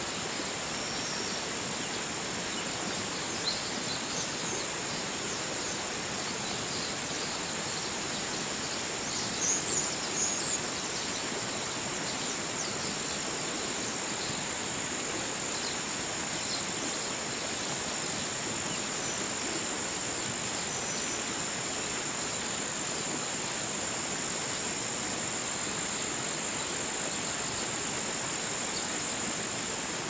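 Steady rush of a flowing river, with a continuous high-pitched buzz above it and a few brief high chirps about four and ten seconds in.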